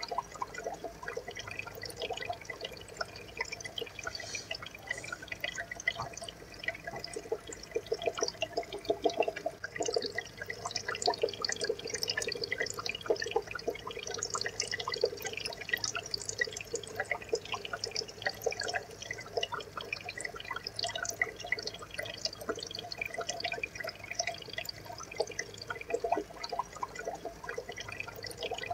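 Aquarium water trickling and bubbling: a steady dense patter of small drips and pops.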